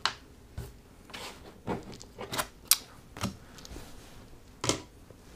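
Playing cards being handled on a tabletop: a string of light, irregular clicks and taps, about nine over several seconds, as cards are picked up, flicked and set down.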